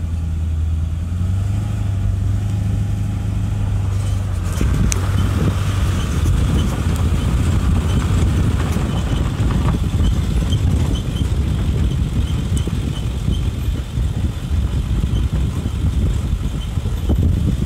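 Truck driving, a steady low engine and tyre rumble that turns rougher and louder about four seconds in, with a few knocks and rattles.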